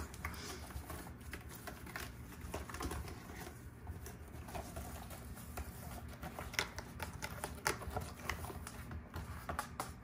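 Kittens' claws scratching and scuffling on a corrugated cardboard scratcher as they wrestle. It is faint and irregular, made of scratchy ticks, with two sharper ones about two-thirds of the way through.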